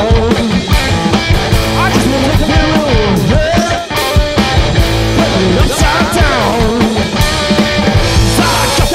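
Live garage punk-blues rock played loud by a two-piece band: guitar over a steady drum beat.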